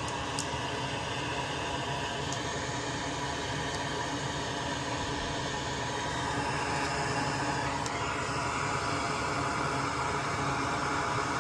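Steady whooshing hiss of a small electric blower running during desoldering work on a circuit board. It gets a little louder about eight seconds in, with a few faint tiny clicks.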